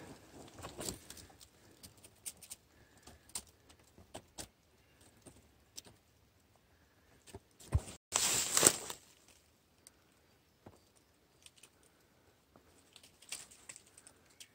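Footsteps and brushing through dry leaf litter and twigs on a forest floor: scattered crackles and ticks, with a louder rustle about eight seconds in.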